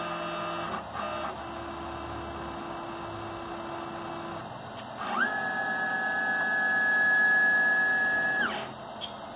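CNC mill's axis drive motor whining through an automatic tool-length measuring cycle. Slow, steady tones as the end mill feeds down onto the touch probe, with a short pause about a second in. About five seconds in, a louder whine rises in pitch, holds, and drops off near the end as the head moves back up.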